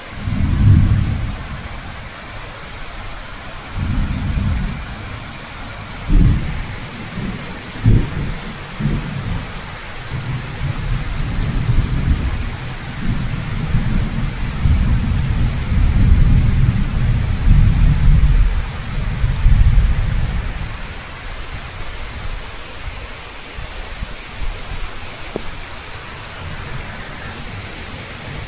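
Heavy rain falling steadily with a constant hiss, under repeated low thunder rumbles: a sharp crack or two, then a long rolling rumble through the middle.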